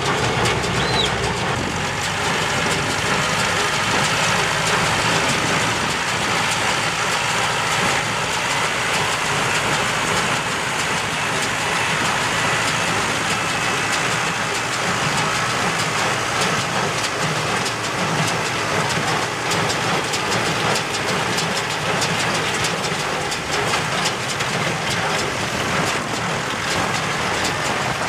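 Tractor engine running steadily while driving a small square baler, with the baler's rapid mechanical clatter as it picks up and presses rice straw.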